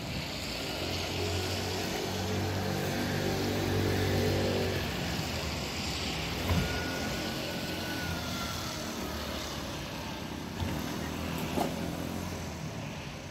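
Siemens Combino tram pulling up at a stop, its electric drive humming for a few seconds before it stands. A thin high squeal follows about halfway through, and a few short knocks come near the end.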